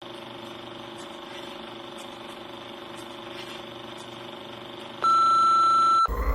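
A steady low hum with faint clicks about once a second, then a loud, steady single-pitch electronic beep lasting about a second that cuts off abruptly.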